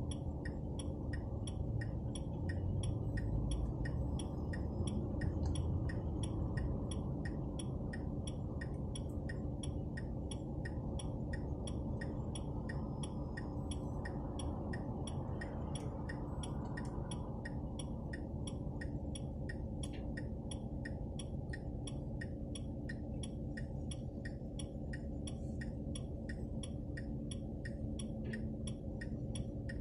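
Smart ForTwo 453's indicator ticking steadily, a little over two ticks a second, over the low hum of engine and road noise in the cabin.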